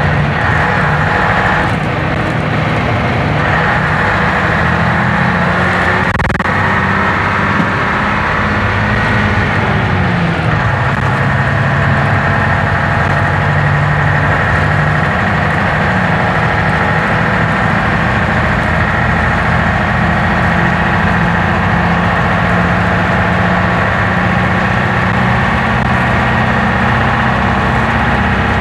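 Leyland double-decker bus's diesel engine running under way, heard from inside the lower saloon, with a steady whine over the engine note. The engine pitch drops about ten seconds in, then holds steady.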